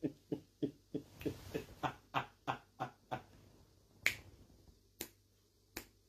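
A run of faint, short, sharp clicks, about three a second for the first three seconds, then three more spaced about a second apart.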